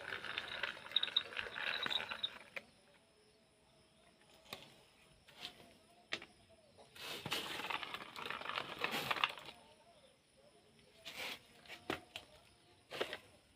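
Plastic toy vehicles being handled: two stretches of rustling, scraping noise a couple of seconds each, with scattered sharp clicks and knocks between them.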